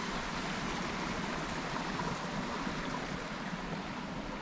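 River water running steadily over a small waterfall.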